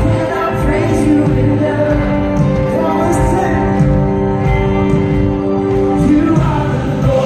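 Live worship band playing a song: a lead singer's voice over guitars and the rest of the band, with sustained held notes.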